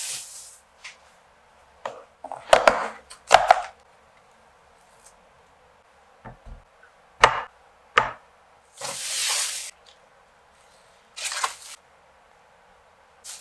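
Kitchen handling sounds: scattered sharp knocks and clicks as a plastic food container, chopsticks and bowls are handled on a wooden table, with a few short rustles.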